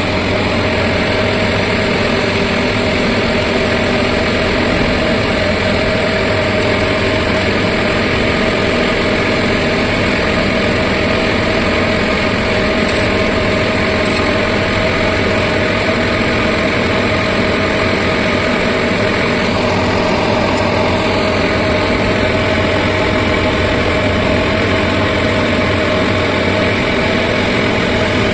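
Diesel engine of heavy construction machinery running steadily at a constant pace, a continuous engine hum with no revving.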